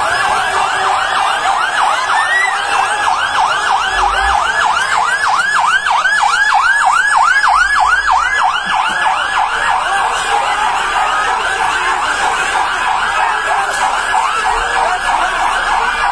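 Fire engine siren sounding a fast yelp, rising and falling about three times a second.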